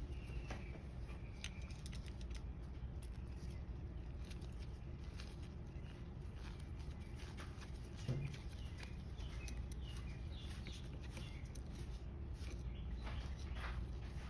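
Scattered light clicks and taps of small parts being handled, over a low steady hum, with one louder knock about eight seconds in.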